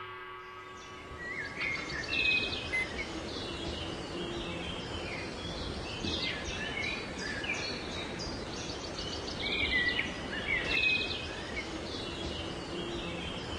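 Several wild birds chirping and trilling over a steady outdoor hiss, with louder clusters of calls about two seconds in and again around ten seconds in.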